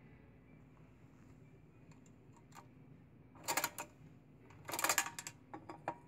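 Advance #11 peanut vending machine's crank being turned by hand: after about three seconds of quiet, its metal mechanism clicks in two quick bursts of rapid clicks, the second longer, with a few lighter clicks after.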